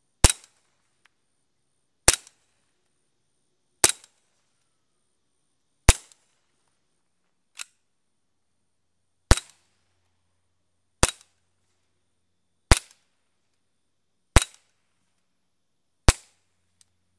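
Suppressed .22 rimfire pistol, a Colt Rail Gun 22 with a CGS Hydra stainless suppressor, firing about nine single shots at a steady pace, roughly one every second and a half to two seconds. The first shots are fired with the suppressor dry, the later ones after a short pause with it wet.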